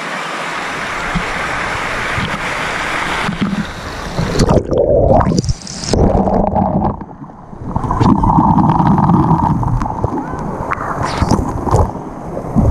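Rushing, splashing pool water at the surface, heard close on an action camera. About four seconds in the camera goes under and the sound turns muffled, with churning and gurgling bubbles underwater.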